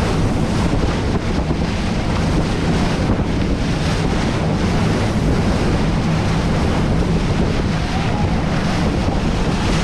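Wind buffeting the microphone and water rushing past the hull of a fishing boat under way, over a steady low engine drone.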